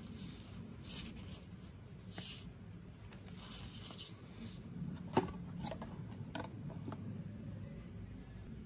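Paper and cardboard packaging handled up close: soft rustling and rubbing in the first half, then a few light clicks and taps, the sharpest about halfway through.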